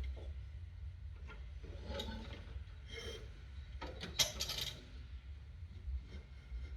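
Light metallic clinks and rubbing from parts and tools being handled on a riding mower deck, the loudest a sharp ringing clink about four seconds in, over a steady low rumble.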